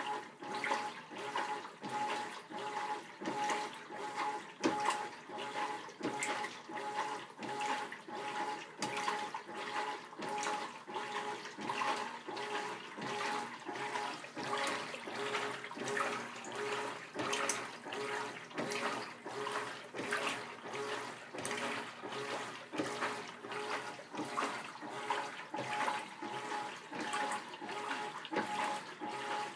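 Whirlpool WTW4800 belt-drive top-load washer agitating a full tub of laundry. Water sloshes and swishes in a steady, even rhythm with each stroke of the agitator, over a faint steady whine.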